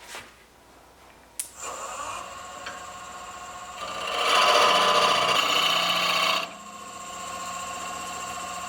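Wood lathe clicking on and running with a steady whine, with a tool worked against the spinning birch blank for a couple of seconds near the middle, louder and rasping.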